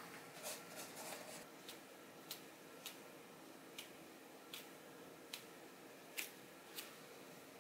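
Quiet room tone with a faint steady hum and about a dozen light clicks and taps at irregular intervals, several close together in the first second or so, then more spread out.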